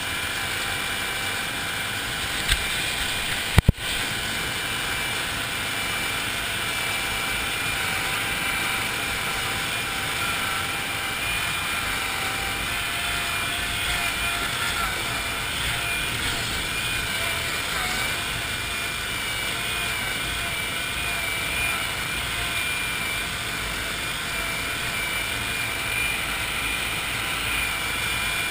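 1974 Cushman Trackster tracked vehicle's engine running steadily under way as it drives across rough grass. There are a couple of sharp knocks a few seconds in.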